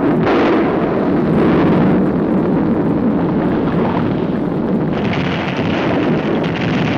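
Cartoon sound effects of a volcano erupting: a loud, continuous rumble that turns hissier about five seconds in.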